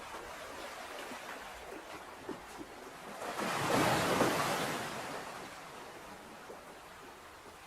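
Ocean waves washing in: a steady surf hiss, with one wave swelling to its loudest about halfway through and then falling back.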